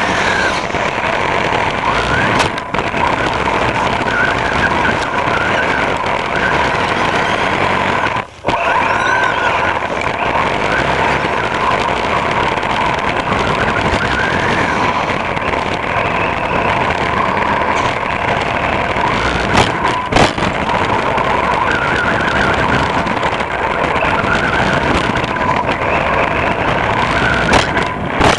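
Onboard sound of an HPI Blitz electric RC short-course truck driving on wet pavement. A steady rush of tyre spray and drivetrain noise runs under a motor whine that rises and falls with the throttle. The sound drops out briefly about eight seconds in.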